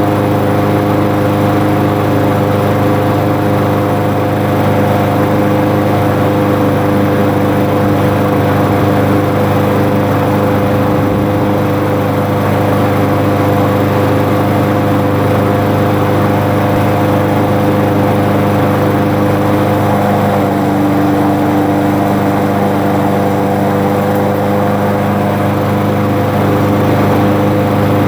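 The newly swapped-in small engine on a Craftsman self-propelled push mower, running steadily and evenly after starting on starting fluid: the replacement engine has taken and keeps running.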